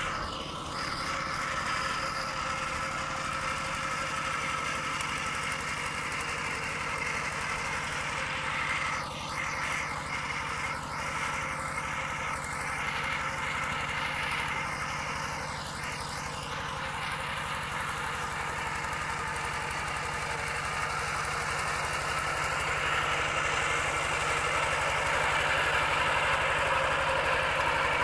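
Single-cylinder diesel engine of a Kubota two-wheel walking tractor running steadily under load while pulling a tiller through paddy mud, a fast even putter that grows louder near the end.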